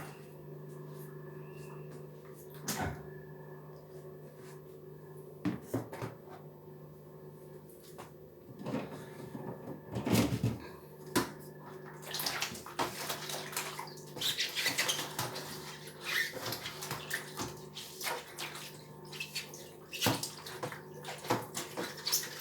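Refrigerator being cleaned: a few separate knocks and clatters, then from about halfway through busy wet scrubbing and washing with frequent clinks, over a steady low hum.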